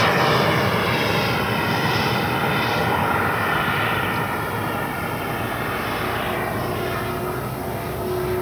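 Black Horse Viper XL RC jet's 100 mm WeMoTec Midi EVO electric ducted fan, driven by a HET Typhoon motor, whining in flight overhead. The many-toned whine bends and sweeps in pitch and slowly fades as the jet moves off.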